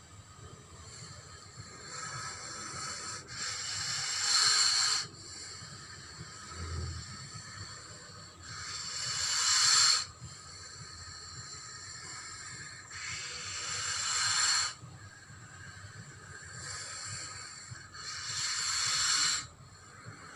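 Giant snake hiss sound effect: a run of hisses, the four loudest each building up and then cutting off sharply, about four to five seconds apart, with softer hisses between them.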